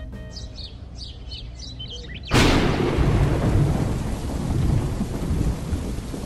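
Birds chirping faintly, then a sudden loud thunderclap about two seconds in that rumbles on into steady rain.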